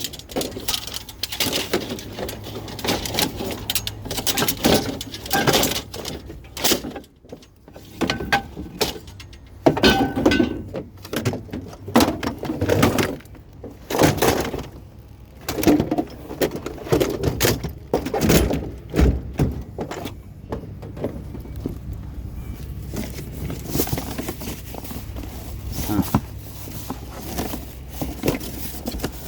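Scrap metal being handled and broken down: a long run of irregular knocks, clanks and bangs of varying loudness, over a low steady hum.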